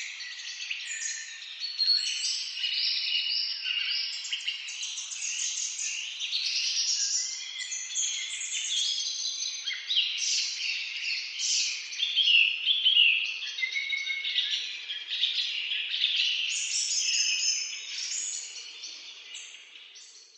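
A chorus of many songbirds singing and chirping at once in a forest, dense and overlapping throughout, fading out near the end.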